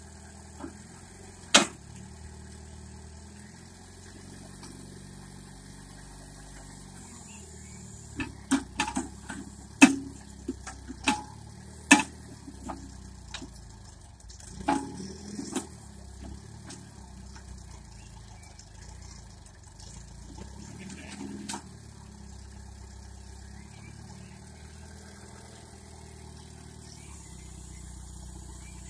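A homemade tractor's engine running at a steady idle, with sharp clanks and knocks over it. The clanks come once near the start, in a dense cluster through the middle (the loudest about ten and twelve seconds in), and a few more later.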